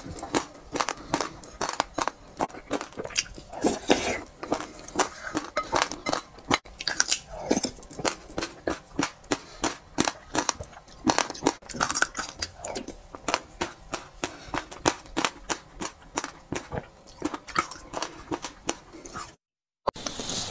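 Eating sounds: quick clicky mouth smacks and slurps as a milky sesame-seed drink is sipped from a spoon, several clicks a second, broken by a brief silence near the end.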